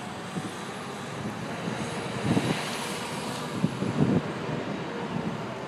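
Engine noise of something passing, swelling to its loudest about halfway through and then fading, with a faint high whine rising and falling over it.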